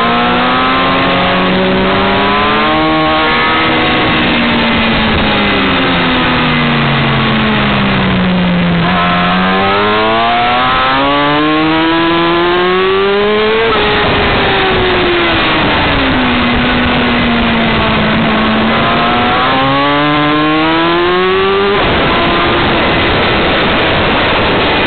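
Yamaha R6 inline-four engine at speed, with strong wind rush over the microphone. The revs fall over the first few seconds, climb steadily from about 9 s, drop back, then climb again and break off sharply near the end.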